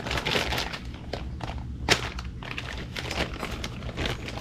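Handling noise of engine parts and their packaging: irregular crinkling and rustling with small clicks, and one sharper tap about two seconds in.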